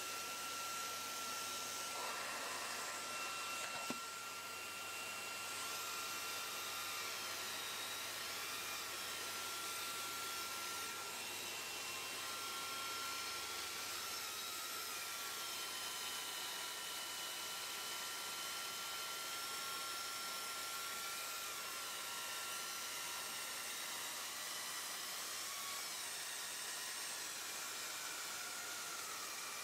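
Steady background hiss with a thin, steady high whine running through it, and one faint click about four seconds in.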